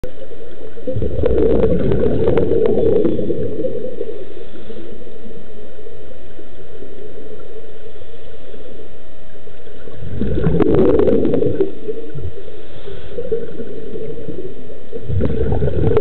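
Scuba regulator exhaust underwater: a diver exhaling, each breath a rumbling gush of bubbles lasting a second or two, three times, over a steady underwater background noise.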